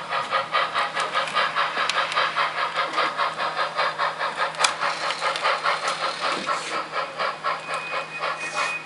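Model steam locomotive's sound unit chuffing steadily at about five beats a second over a low steady hum while it switches cars. A thin high whine comes in near the end.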